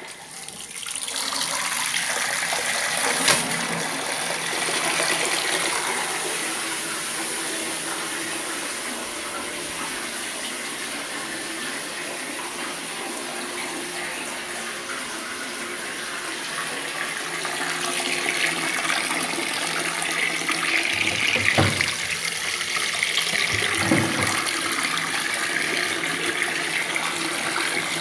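Water from an electric pump gushing steadily out of a pipe into a tub: the pump, switched on through a Wi-Fi smart plug, is running. There is a sharp click about three seconds in and two dull knocks late on.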